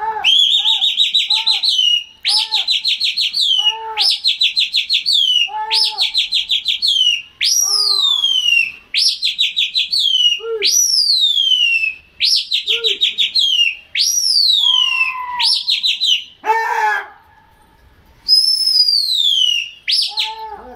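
A pigeon flyer's loud trilled whistling, repeated about a dozen times, calling to a flock of pigeons circling overhead. Each phrase is a fast warbling trill that ends in a falling glide; some are a single long falling whistle. There is a short pause near the end.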